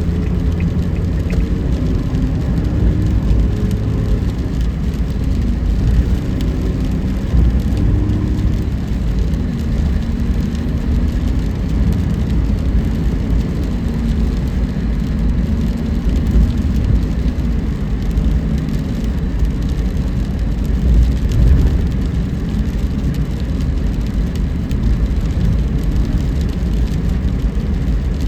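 Car on the move: a steady low rumble of road and engine noise, with a faint engine tone drifting up and down in the first several seconds.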